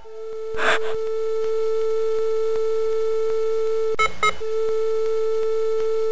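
A steady, unbroken electronic beep tone at one pitch, with a short rush of noise under a second in and two quick clicks breaking the tone about four seconds in.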